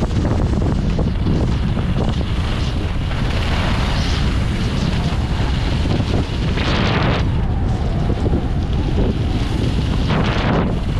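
Wind buffeting the microphone of a camera carried by a skier moving downhill, a steady low rumble. Over it, skis scrape and hiss on groomed snow, swelling louder with each turn, three times.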